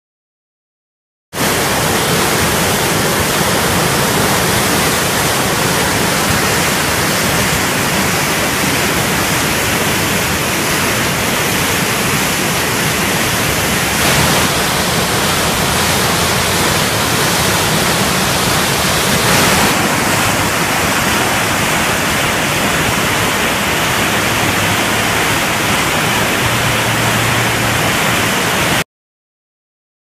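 Rain-swollen creek in flood, fast-moving water rushing and churning against a concrete bridge pier and wall: a loud, steady rushing. It starts suddenly about a second in and cuts off shortly before the end.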